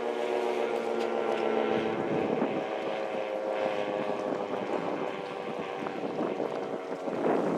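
Decot Red Arrow Model 12 outdoor warning siren winding down at the end of its full-alert tone, a chord of steady tones slowly falling in pitch and fading. Wind on the microphone, with a loud rush near the end.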